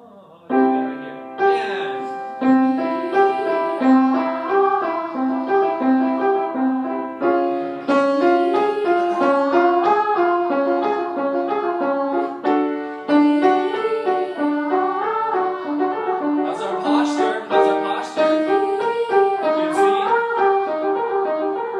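Piano accompanying a group of young choir voices singing a warm-up exercise on "ah" with two fingers in their mouths, a short rising-and-falling pattern of held notes repeated several times.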